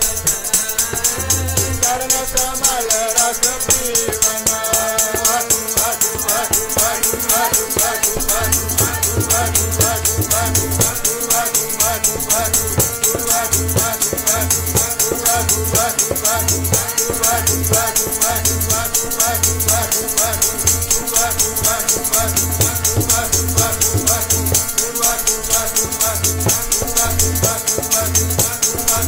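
Sikh keertan (devotional hymn) music: harmonium and singing, regular low tabla strokes, and a fast, steady rattle from a hand-shaken percussion instrument.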